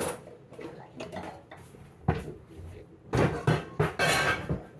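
Dishes and metal cutlery clattering and knocking together as they are handled and put away, in several separate clusters of knocks with the busiest stretch near the end.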